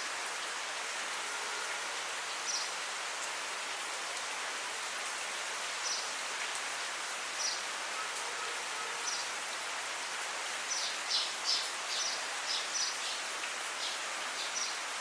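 Steady monsoon rain hissing, with short high bird chirps scattered through it, several in quick succession about two-thirds of the way in.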